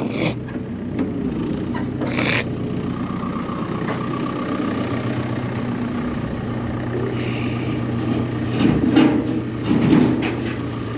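JCB 541-70 telehandler's diesel engine running steadily while its boom is worked, with a steady whine for several seconds and a few knocks near the end.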